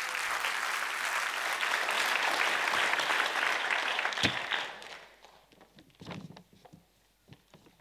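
Audience applauding, dying away about five seconds in, followed by a few faint scattered knocks.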